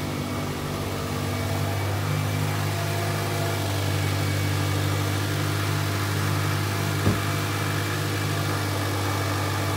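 Car engine idling steadily after a jump start from a second battery on jumper cables; its own battery is dead, and the owner suspects it is worn out. A single short click about seven seconds in.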